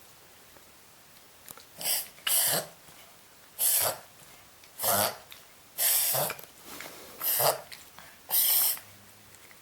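Papillon dog reverse sneezing: a run of about seven loud honking snorts, roughly one a second, starting about two seconds in.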